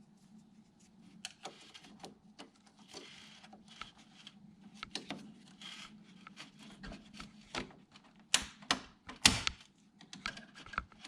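Irregular clicks, taps and short scrapes of a hand tool working torx screws and handling plastic engine-bay parts, with a few louder knocks between about eight and nine and a half seconds in.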